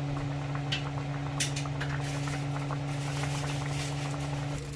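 A steady low hum with a bubbling, simmering noise over it and a few faint clicks: a pot on the boil.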